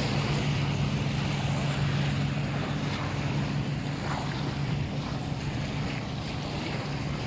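A boat engine running steadily with a low, even hum that fades slightly toward the end, over wind and surf noise.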